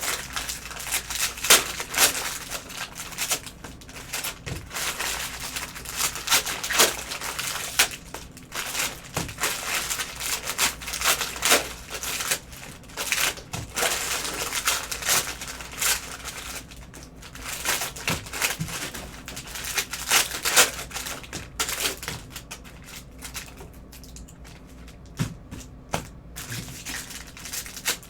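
Cellophane wrappers of Panini Prizm cello trading-card packs crinkling and crackling as they are torn open and handled, in an irregular run of short crackles and snaps.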